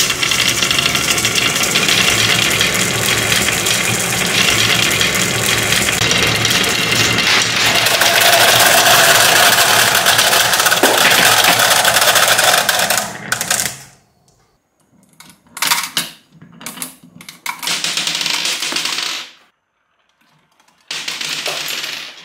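Glass marbles rolling and clacking down a wavy wooden HABA marble-run slope in a dense, continuous clatter that dies away about 13 seconds in. A few short clattering bursts and clicks follow, with silence between them.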